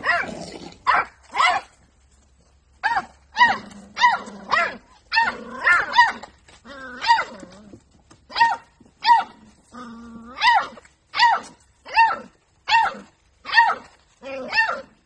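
Beagle puppy barking over and over, short barks that each rise and fall in pitch, about one and a half a second.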